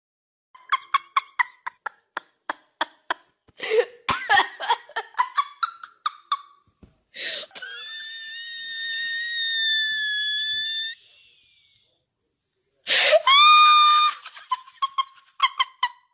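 Children laughing in quick runs of short giggles. A long, high-pitched squeal about seven seconds in lasts several seconds, and a short, loud shriek comes near the end before more giggling.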